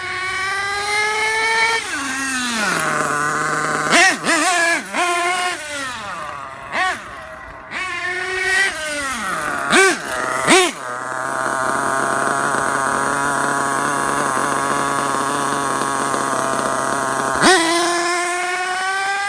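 Dynamite .28 nitro two-stroke engine in a radio-controlled truggy, revving up and down in repeated throttle bursts. It settles into a steady idle for several seconds, then revs sharply again near the end. The engine is running rich while being leaned out during break-in.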